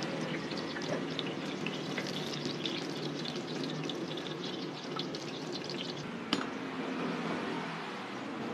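Hot oil sizzling and crackling around dough deep-frying in a large wok, over a steady low hum. A single sharp click comes about six seconds in, after which the crackle thins to a smoother hiss.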